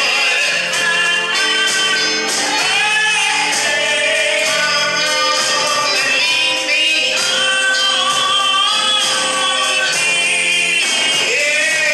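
Gospel singing: several voices in harmony over instrumental backing with a bass line and a steady beat.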